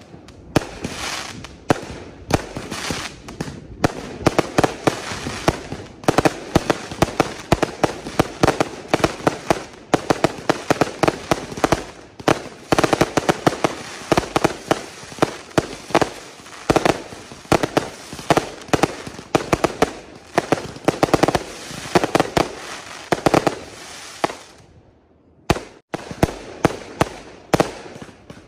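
Fireworks going off in a rapid barrage: shells launching and bursting overhead with sharp bangs and crackle, several a second. There is a brief lull about three seconds before the end, then the bangs resume.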